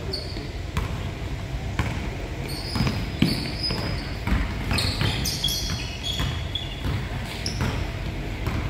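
Basketball bouncing on a hardwood court in irregular dribbles, mixed with sneakers squeaking in short high chirps several times through the middle.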